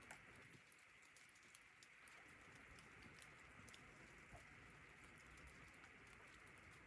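Faint patter of falling precipitation: scattered light ticks over a low steady hiss.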